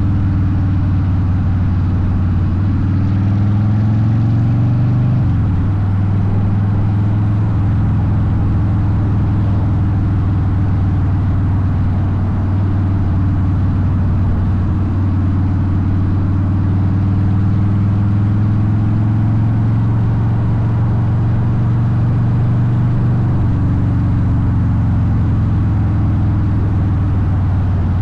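Harley-Davidson Softail Deuce V-twin with Vance & Hines exhaust running steadily under way. The engine note shifts about five seconds in and again near the end.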